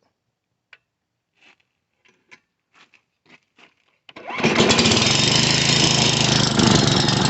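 A few faint clicks and knocks, then a Tecumseh 6 hp single-cylinder four-stroke small engine is pull-started and catches at once, about four seconds in, running steadily and loud. The valve that had been stuck has been freed, and the engine now starts on one pull.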